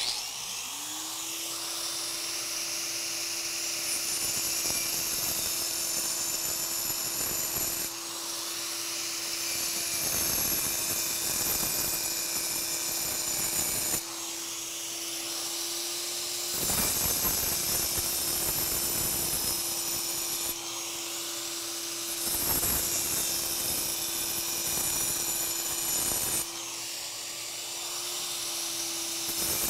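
4-inch angle grinder with a continuous-rim diamond blade cutting a tight circle into concrete, its motor spinning up at the start and then running steadily while the cutting noise swells and eases as the blade is worked around the curve. A vacuum runs alongside to pull away the dust.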